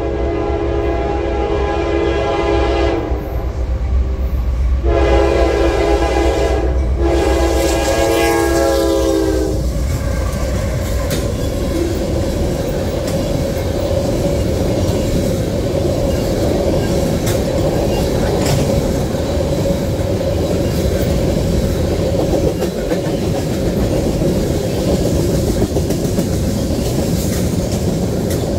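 Locomotive air horn on an approaching freight train, sounded in three blasts that end about nine and a half seconds in, over the deep rumble of the lead diesel locomotives. After that, loaded-train rolling noise as a long string of tank cars passes: steady wheel-on-rail rumble with a sustained ringing tone.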